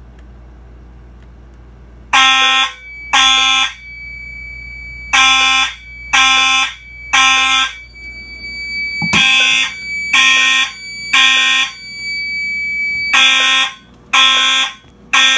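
Fire alarm horns start about two seconds in and sound in the temporal-three evacuation pattern: three short blasts about a second apart, then a pause, repeated. A steady high-pitched tone sounds underneath for much of the time.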